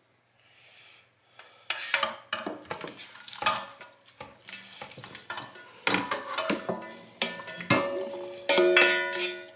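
A plastic slotted spatula scraping and knocking against a metal frying pan as cooked broccoli is scraped out into a colander: irregular clanks and scrapes starting about two seconds in, some clanks leaving the pan briefly ringing, loudest near the end.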